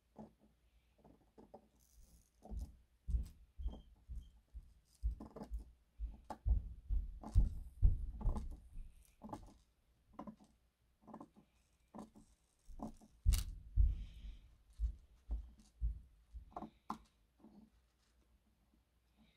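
Scissors snipping off the tops of thin model fence posts one after another: a string of short, irregular snips and clicks, many with a dull knock against the wooden board underneath.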